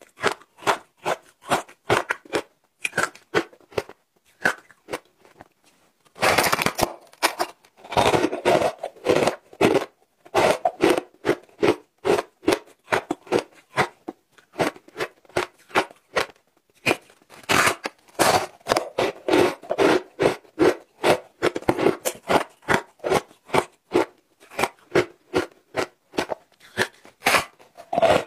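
Frozen shaved-ice chunks coated in matcha powder being bitten and chewed: a dense run of sharp crunches, several a second, with a short lull about four to six seconds in.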